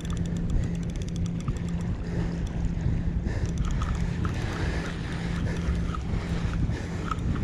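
A Penn spinning reel being cranked against a big fish on the line, giving a low, rhythmic gear hum in short repeating pulses. Wind buffets the microphone throughout, with faint fine ticking in the first few seconds.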